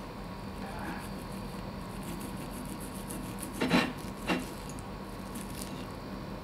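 Table knife sawing through a seared pork steak held with a fork on a plate: faint rubbing scrapes, with two louder clicks of the cutlery against the plate a little past halfway, about half a second apart.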